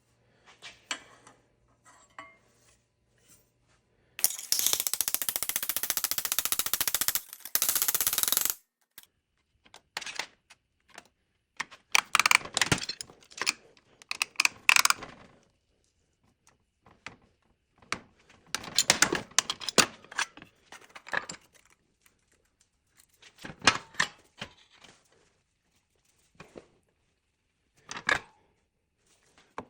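Metal repair work: a rapid-fire rattling tool runs for about four seconds near the start, then sharp metallic clinks and clatters come in scattered clusters.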